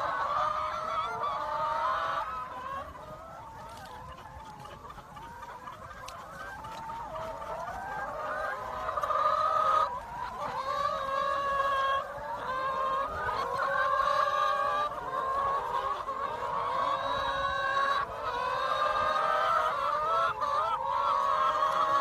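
A large flock of domestic hens clucking and calling all at once, a dense, overlapping chorus. It dips quieter about three seconds in, then builds back up.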